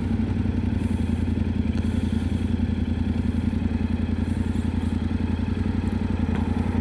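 Yamaha Ténéré 700's 689 cc parallel-twin engine running steadily at an even, unchanging pitch.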